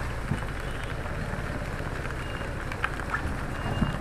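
Motorcycle ridden through rain: steady engine and wind/road noise, with a couple of brief faint high beeps in the second half.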